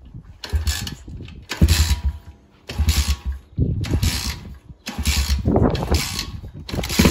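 Kick-starter of a Pitster Pro XJR 125, a 125cc four-stroke single-cylinder pit bike, kicked about six times, roughly once a second. Each kick gives a short ratcheting whirr as the engine turns over without catching.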